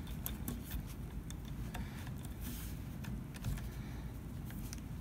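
Scattered light clicks and handling noise as hands fit small metal parts back into a Savage Axis rifle's action while reassembling the trigger.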